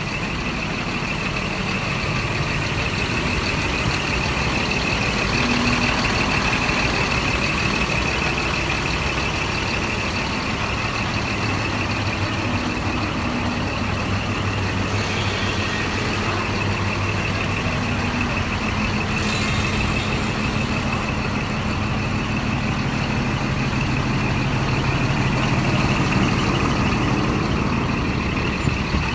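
Scania R 420 truck's diesel engine idling steadily, with a steady high-pitched whine over it.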